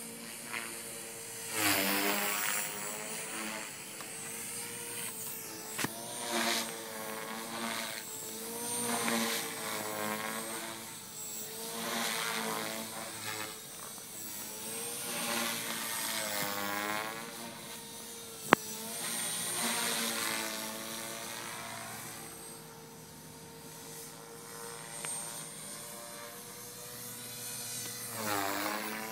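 Radio-controlled model helicopter flying overhead, its rotor and motor whine rising and falling in pitch again and again as it manoeuvres and passes back and forth. A single sharp click about eighteen seconds in.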